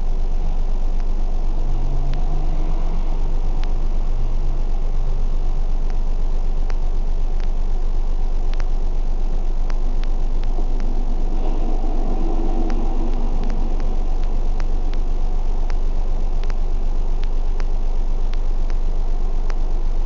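Vehicle engine idling with a steady low hum and rumble, with faint, irregular clicks through it.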